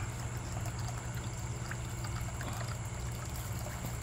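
Water trickling and pouring steadily, over a low steady hum.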